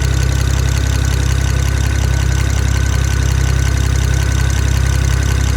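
BMW 335i's N54 twin-turbo inline-six idling steadily, with a fast, even ticking from the top end and a pinging that stands out from the regular ticking. The owners can't yet place it: injector, valve tapping or rod bearing.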